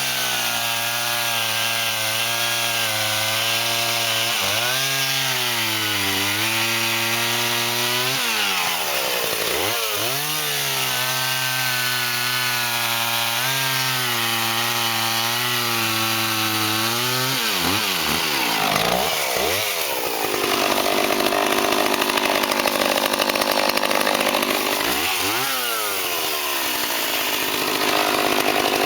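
Vintage Homelite two-stroke chainsaw cutting wood at full throttle, its engine note sagging and recovering as the chain bites. Twice, about 8 and 17 seconds in, the revs drop sharply and sweep back up, and from about 20 seconds the sound turns rougher and noisier, with one more dip and rise near 26 seconds.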